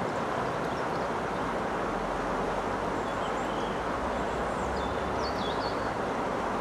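River water rushing steadily around a wading angler, with a few faint, short bird chirps over it.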